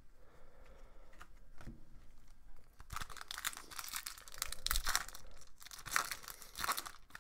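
A hockey card pack's foil wrapper crinkling and being torn open by hand. The crackling starts about three seconds in, in short irregular rips.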